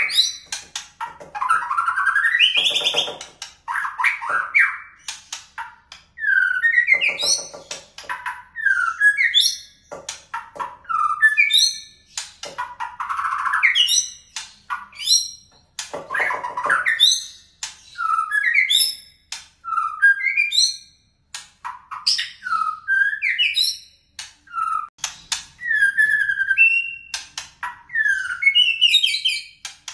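White-rumped shama (murai batu) singing a long, varied song of loud whistled phrases, rising and falling glides and fast trills, with short pauses between phrases. Its repertoire is billed as carrying canary and cililin fill-ins.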